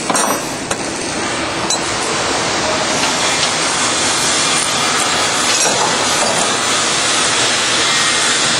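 Steady loud mechanical noise with a few metallic clinks in the first two seconds.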